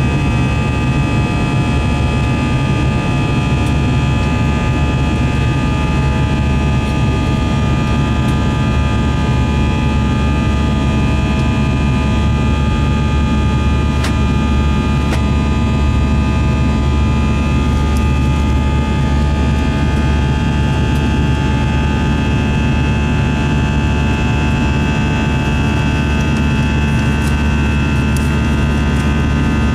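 Airbus A321 cabin noise heard from a window seat beside the wing-mounted turbofan engine in flight after takeoff: a steady, loud rush of engine and airflow with a low droning hum and several steady whining tones.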